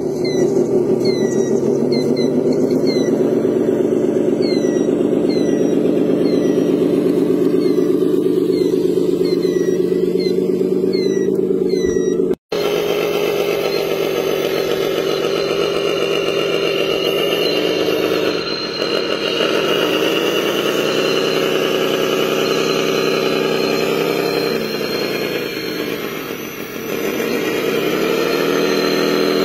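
Motors of radio-controlled construction models running with a steady whine. A series of short high chirps runs over it in the first part. After the model wheel loader takes over, the pitch dips and recovers twice as it works the sand.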